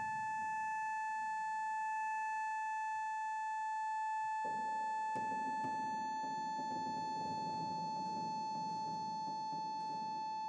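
Pump organ (harmonium) holding one steady high reed note as a drone. About four and a half seconds in, a low rushing noise comes up under it, with a few faint clicks.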